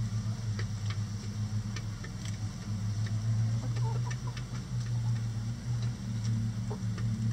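Hens pecking at a hanging head of red cabbage skewered on a metal rod, making irregular sharp taps over a steady low hum.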